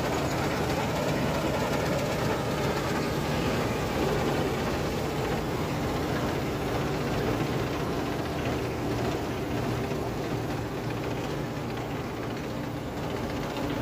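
Claas Dominator 48S combine harvester running while harvesting wheat: a steady diesel engine drone under a dense mechanical clatter from the machine, easing slightly a little after halfway and building again near the end.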